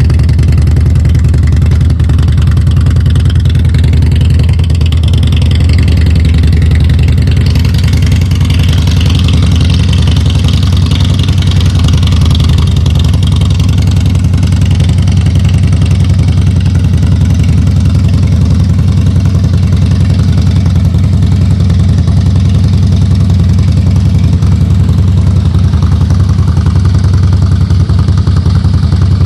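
Harley-Davidson Breakout's V-twin engine idling loud and steady through its exhaust, with no revving.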